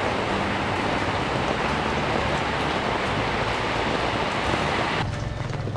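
Steady rain falling, an even hiss that cuts off abruptly about five seconds in.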